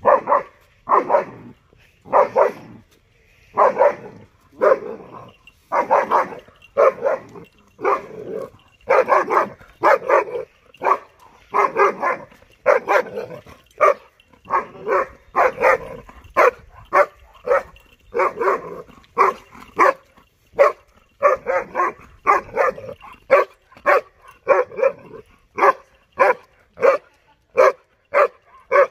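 A 6.5-month-old German shepherd puppy barking over and over at passing water buffaloes, about one to two loud barks a second, sometimes in quick pairs, without letting up.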